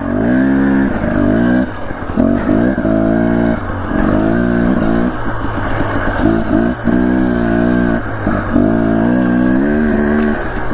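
Dirt bike engine pulling under throttle, coming on and off in repeated surges, each rising slightly in pitch and holding for about a second and a half before a brief letup.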